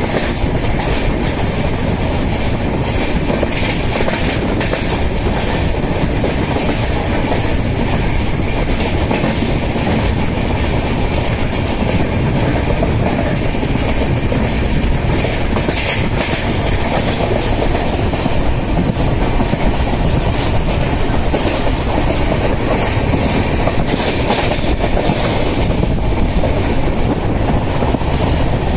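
An LHB passenger coach running at speed, heard from its open doorway: a steady loud rumble of wheels on rail with irregular clickety-clack knocks over rail joints, and rushing air.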